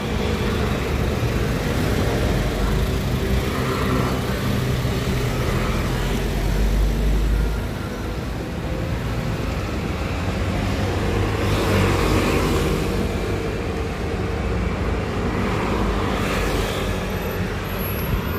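Street traffic at a city intersection: the engines of a truck, cars and motor scooters running, with a steady low rumble. Vehicles pass by about two-thirds of the way through and again near the end.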